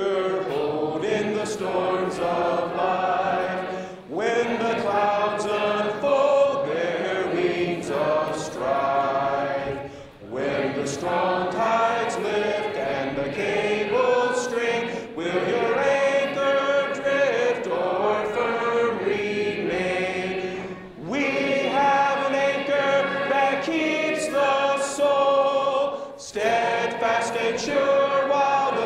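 Congregation of men, women and children singing a hymn together a cappella, with no instruments. The singing comes line by line, with short pauses for breath between phrases every few seconds.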